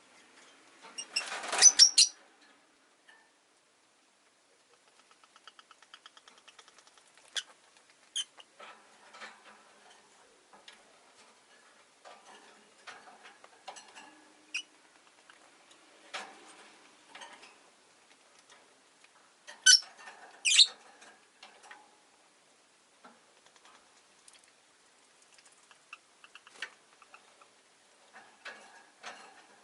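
Rosy-faced lovebirds in their cage: a few loud, shrill chirps near the start and again about two-thirds through. Between them are soft scratching, pecking and clicking sounds, and a quick run of small ticks early on.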